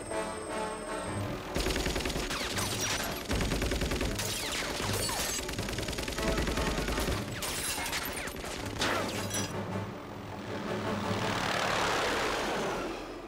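Film soundtrack action mix: rapid bursts of automatic gunfire over an orchestral score, then a swelling rush of noise near the end.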